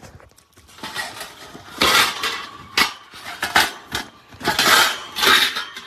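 Metal parts clinking and rattling in a series of clattering handling noises, as a bird carrier's fittings are moved about by hand.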